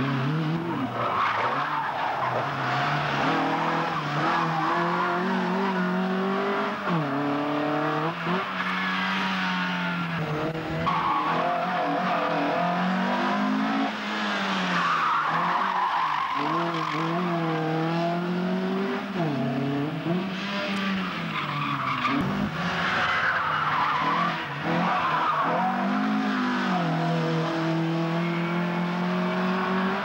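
Ford Escort rally car's 1600 cc stage 3 tuned engine driven flat out, revving high and dropping away again and again through gear changes and corners, with the tyres squealing and skidding on tarmac at times.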